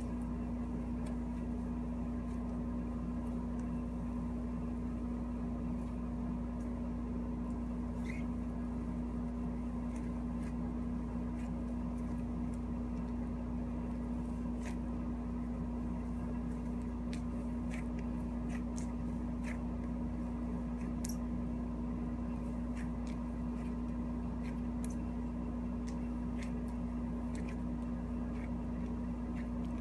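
Cloud slime being pressed and kneaded by hand, giving faint scattered soft clicks and crackles. A steady mechanical hum runs under it and is the loudest sound.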